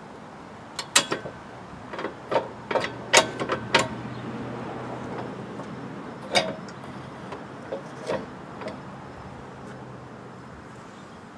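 Metal clanks and clicks, some of them briefly ringing, as a Hi-Lift jack and its mounting hardware are handled. They come in a quick run in the first few seconds, with a few more scattered later.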